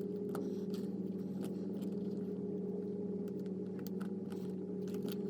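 Scattered light metallic clicks and ticks of small screws and a hex key as the motor housing's socket head screws are put back in, over a steady low hum.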